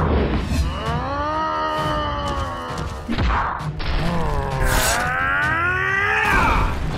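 Cartoon fight sound effects: two long, groaning cries that rise and fall in pitch, with sharp hits and thuds between them.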